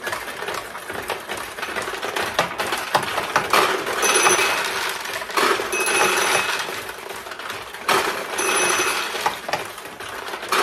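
Steel balls launched into a 1975 Sanyo Comet II pachinko machine, clattering and clicking down through its pins. About four times, louder rushes of rattling balls come with a ringing tone: winning payouts with tulips open.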